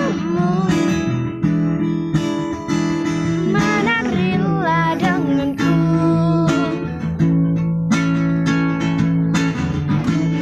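Guitar music with plucked notes and a voice singing over it.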